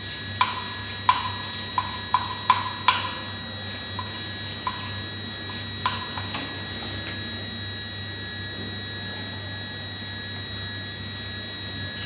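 About ten light metallic clicks, each with a short ring, from engine parts being handled on a cylinder head during valve lapping, spread over the first six or so seconds. After that there is only a steady low hum.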